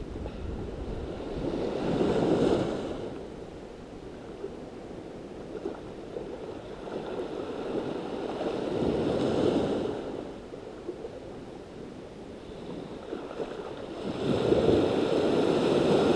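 Small waves washing up on a sandy beach in three surges about six seconds apart, the last the longest.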